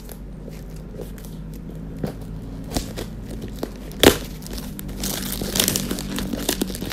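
Gift wrapping on a box being cut and pulled open by hand: paper crinkling and tearing with scattered small clicks, a sharp snap about four seconds in, then a stretch of louder crinkling and tearing. A steady low hum sits underneath.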